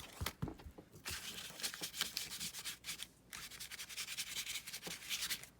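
Ink pad rubbed lightly back and forth across textured paper in quick scratchy strokes, inking the raised bumps, with a brief pause about three seconds in.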